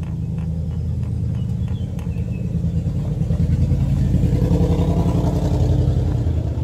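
An engine running close by: a low rumble with a fast pulse that grows louder over the first four seconds or so, then eases slightly near the end.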